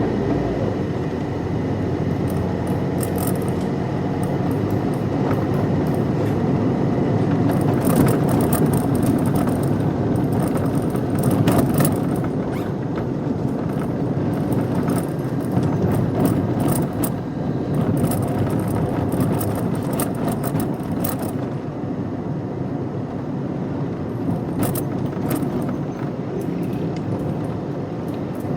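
Car being driven: steady engine and road noise, a little louder about a third of the way in, with scattered light rattles and ticks over it.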